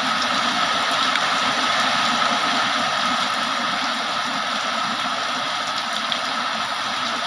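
Heavy rain pouring steadily, an even hiss of water with no let-up.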